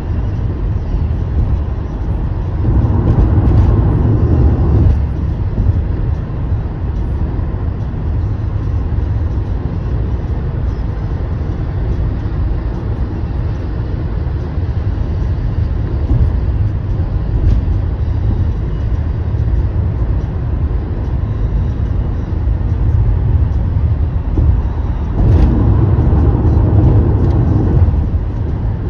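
Steady road and tyre noise heard from inside a car's cabin at highway speed on wet pavement: a low rumble with hiss. It swells for a couple of seconds about three seconds in and again near the end.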